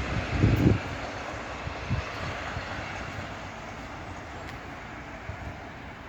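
Diesel-hauled charter train with a class 56 locomotive on the rear, running away at high speed; its rumble fades steadily. Wind buffets the microphone in the first second.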